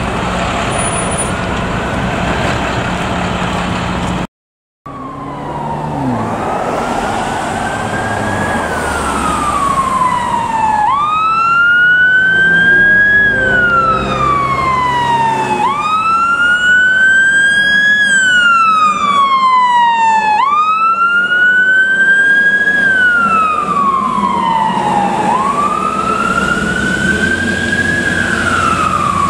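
Fire engine siren in a slow wail, its pitch rising and falling about every five seconds, over the low rumble of the truck and traffic. Before that, a steady low traffic and engine rumble is cut off abruptly about four seconds in.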